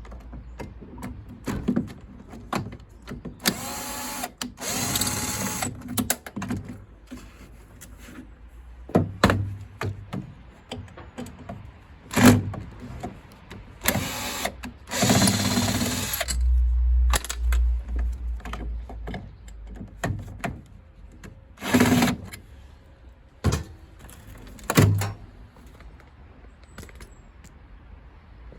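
Cordless drill-driver whirring in several short bursts of about a second each, undoing screws to free a plate from a gas boiler, with clicks and knocks of metal parts being handled between the bursts.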